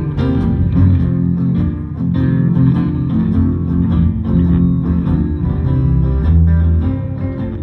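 Instrumental break of a country song: guitar playing a plucked melody over a bass line, with no singing.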